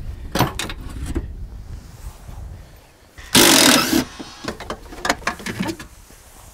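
Hands working the metal windshield wiper linkage assembly free from the cowl, giving scattered knocks and clicks of metal parts. About three and a half seconds in there is a short, loud scraping rush, then a few more knocks.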